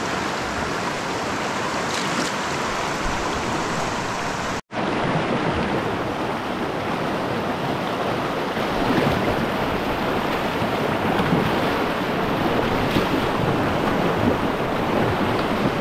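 Whitewater rapids rushing around a kayak, heard from the boat as it runs the river. The sound cuts out for an instant about a third of the way in, and is a little louder in the second half as the boat drops into the white water.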